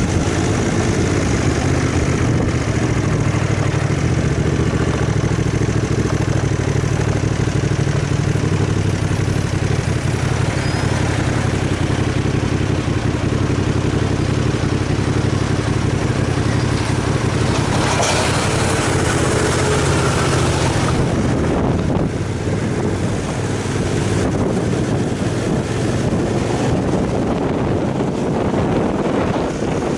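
Aprilia Caponord 1200's V-twin engine running as the motorcycle slows to a stop and idles, then pulls away again in the last part.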